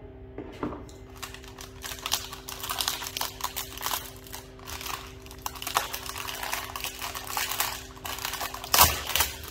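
Plastic wrapper crinkling and tearing as it is pulled off the valve of a brand-new refrigerant recovery tank, with a sharp knock near the end.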